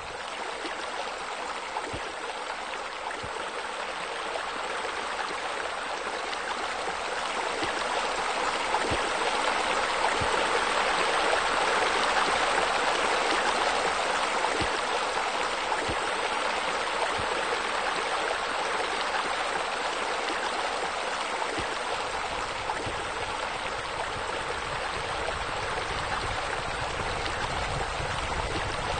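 Steady rush of running water, swelling to its loudest about halfway through and easing off again.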